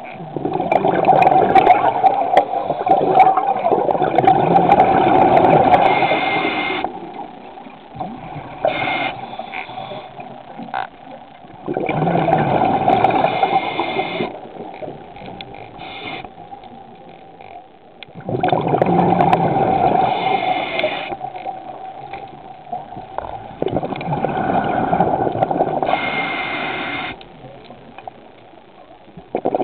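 A scuba diver's exhaled breath bubbling out of the regulator underwater: four loud rushing, gurgling bursts of bubbles at a steady breathing rhythm, about one every six seconds, with quieter inhale pauses between.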